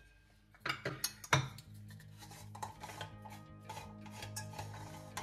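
Metal clinks and knocks of an aluminium stovetop moka pot being handled and opened, the sharpest about a second in. Soft background music comes in under it.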